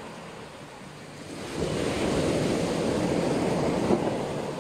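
Sea waves washing onto the shore: a lull, then a wave surges in about a second and a half in, washes for a couple of seconds and eases off near the end.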